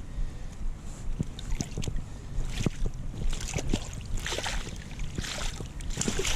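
Wind buffeting the microphone in a steady low rumble, with bursts of water-like hiss and scattered short knocks.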